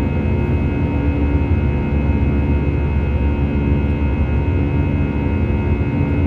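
Airbus A319's CFM56 jet engines and the airflow, heard inside the cabin in flight: a steady low rumble with a few steady humming tones over it.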